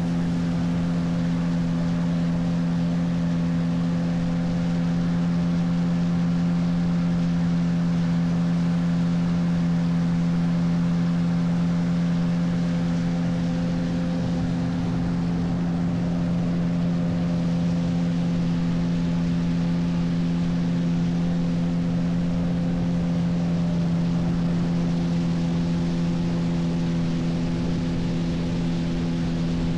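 Motorboat outboard engine running at a constant speed, a steady drone that holds one pitch throughout.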